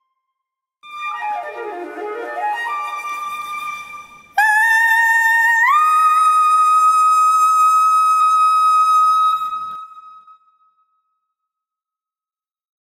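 Soprano with flute at the end of an operatic coloratura cadenza: a run that falls and climbs back. About four seconds in comes a loud high note that rises a step, is held for about five seconds, then fades away.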